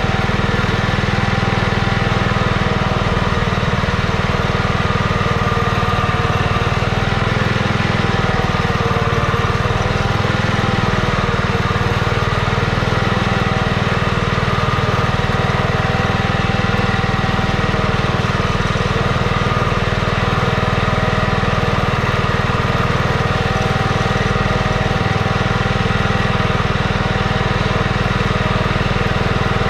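Simplicity 2010 garden tractor's engine running at a steady speed without a break while the tractor pulls a cultivator through the soil.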